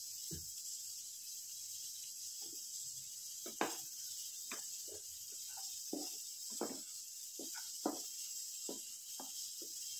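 Spatula scraping and knocking against a nonstick frying pan while stirring a thick vegetable and potato filling, in irregular strokes from about two seconds in. A steady faint hiss runs underneath.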